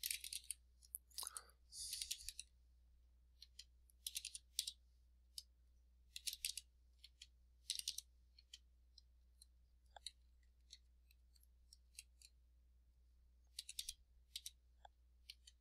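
Faint computer keyboard typing: short quick runs of keystrokes with pauses between them as numbers are entered.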